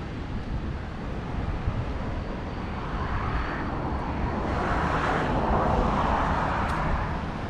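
Road traffic with low wind rumble on the microphone. A louder passing sound swells from about three seconds in, peaks around five to six seconds, then eases off.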